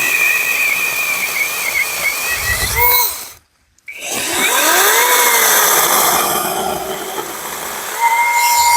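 Battery-powered mini chainsaw cutting through a hardwood branch. The electric motor's whine wavers under load and cuts out about three seconds in. It then spins up again with a rising whine and cuts on, and near the end it holds a steady pitch.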